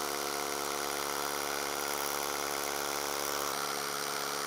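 Large rotary hammer drilling into a concrete block with a 10 mm hollow dust-extraction bit, a steady hammering drone, with the vacuum hosed to the bit drawing off the dust.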